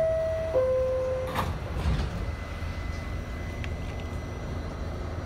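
An R68A subway car's descending two-note door chime, then its sliding doors shutting with a knock about a second and a half in, followed by the steady low rumble of the car as the train pulls out.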